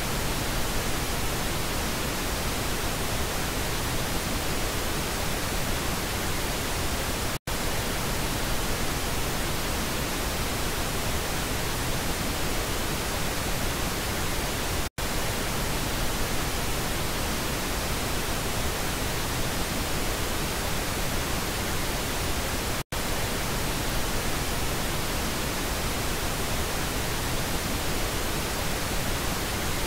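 Pink noise test signal: a steady, even hiss across the whole range, broken by three very brief dropouts about every seven and a half seconds as the signal is switched between the left and right speaker channels.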